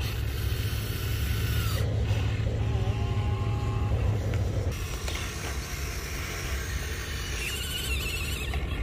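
Radio-controlled excavator's small electric motors whirring as it swings its arm and digs, over a steady low rumble.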